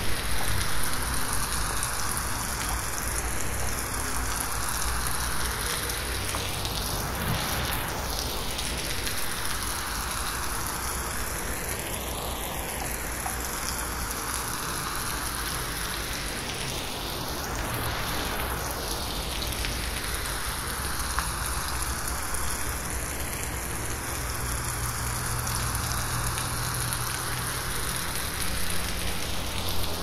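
Gentle rain falling steadily on forest leaves. It is processed as 8D audio, so the rain seems to swing slowly around the listener every five seconds or so.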